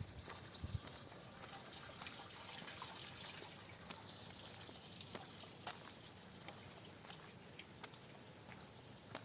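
Rain falling during a thunderstorm, a steady hiss with scattered single drops ticking sharply close by. A brief low thump comes less than a second in.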